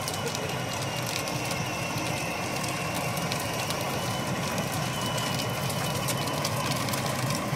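Power Wheels Corvette ride-on toy driving on asphalt: the steady hum of its battery electric drive with its hard plastic wheels crackling and grinding over the rough pavement.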